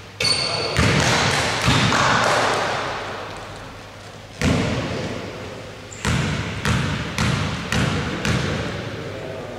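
Basketball bouncing on a wooden gym floor in an echoing hall. A free throw strikes the rim with a brief ring, the ball bounces twice, is bounced back once, and then is dribbled about five times, roughly two bounces a second.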